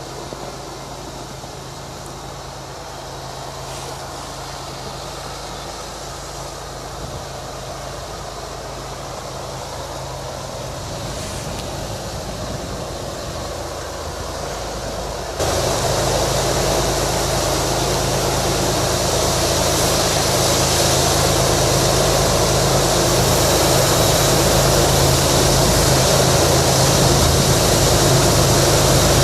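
Diesel freight locomotives approaching, with a steady low engine drone that grows louder. About halfway through, the sound jumps abruptly louder.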